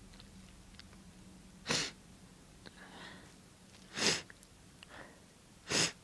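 Three strong, wet human sneezes, about two seconds apart, each a short sharp burst, with a quick breath drawn in before the second and the third.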